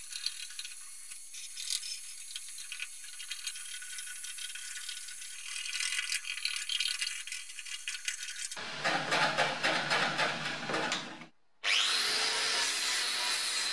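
A heat gun blowing hot air while a steel scraper scrapes softened undercoating off a car's steel chassis; the scraping turns louder and coarser for a few seconds near the end. After a brief break, a small angle grinder spins up with a rising whine and runs steadily.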